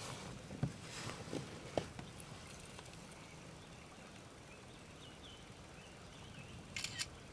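A few faint knocks and thumps in the first couple of seconds as a bass is handled in the kayak, then near the end two quick sharp clicks like a phone camera shutter.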